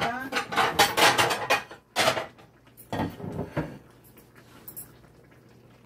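Cookware and utensils clattering: a quick run of knocks and clinks for about two seconds, then three separate knocks, then quiet.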